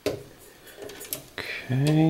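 Small clicks and ticks of a wire being worked into a stepper driver's screw terminals by hand, with a sharp click at the start. Near the end a brief hummed voice sound, louder than the clicks.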